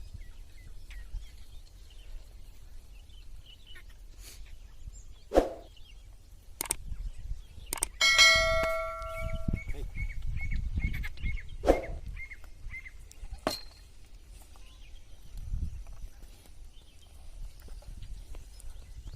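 A metal bell clangs once about eight seconds in and rings out for over a second, then tinkles lightly for a few seconds. A few sharp knocks come before and after it over a low steady rumble.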